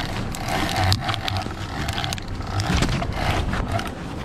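Boat outboard motors running with a low rumble and wind buffeting the microphone, broken by many short clicks and knocks of the rod and reel being handled.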